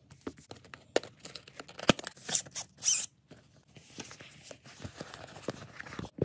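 A trading-card playmat being taken out of its long printed box and unrolled: a couple of sharp knocks, scratchy rustling of the packaging, then softer rustling as the rolled mat is handled.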